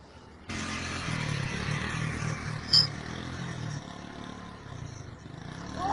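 Small motorcycle engine running as it comes up the road and passes close by, fading as it goes. There is one sharp click about three seconds in.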